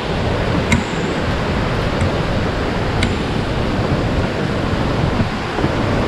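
Fukiware Falls rushing: a steady, loud roar of falling water heard close up. There are two faint short clicks, about a second in and about three seconds in.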